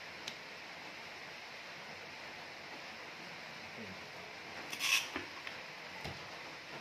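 Handling noise: a short burst of rustling and scraping about five seconds in as a hand moves the desk lamp beside the camera, followed by a few small clicks, over a steady background hiss.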